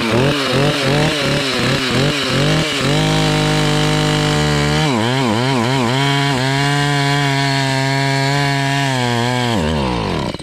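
Two-stroke chainsaw cutting through a small fallen log, its engine revving up and down, then mostly holding steady under load. Near the end it winds down and dies: the saw has run out of fuel partway through the cut.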